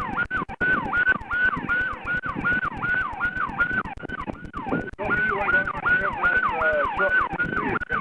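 Police car siren on a fast yelp. Each cycle rises quickly in pitch and then falls more slowly, about three cycles a second. It falters briefly about halfway through.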